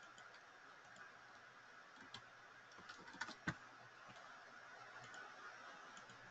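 Near silence with a handful of faint computer keyboard clicks from about two seconds in, the last, about three and a half seconds in, the loudest.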